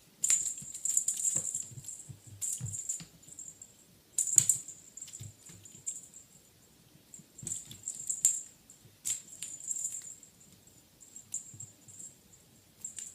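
Egyptian Mau kitten at play, making irregular bursts of light clicking, skittering and rustling, with the sharpest burst about four seconds in.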